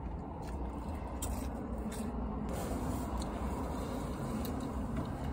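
Steady low rumble and hiss of a car's interior, with a few faint ticks.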